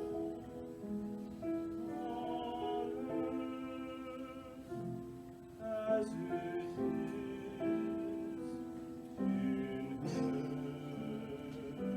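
Slow sacred choral music: voices singing long held chords that change every second or two.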